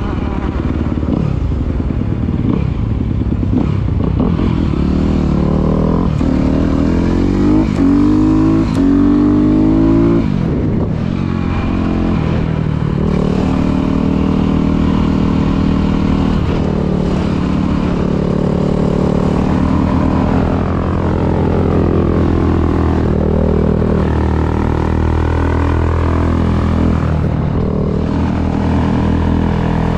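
Motorcycle engine accelerating hard, its pitch climbing again and again through the gear changes over the first ten seconds or so, then running at a steadier speed with smaller rises and falls. In the later part it is a dirt bike.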